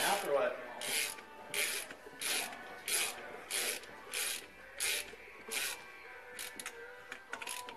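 Socket ratchet clicking in a steady run of short back-strokes, about three every two seconds, as a fitting is tightened on a turbocharger. The strokes get weaker and more scattered near the end.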